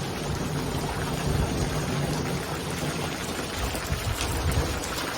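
Hail falling fast with rain, hitting concrete in a steady dense patter, with a few sharper ticks of single stones striking.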